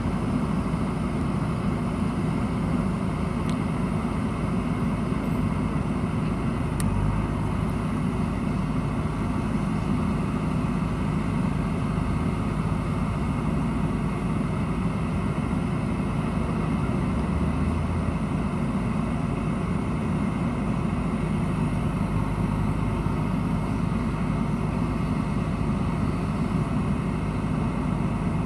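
JCB backhoe loader's diesel engine running steadily at low revs, its note shifting slightly a couple of times as the backhoe arm is worked.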